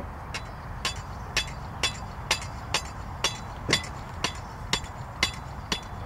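Steady hammering: about a dozen sharp, evenly spaced blows, roughly two a second, each with a brief ring.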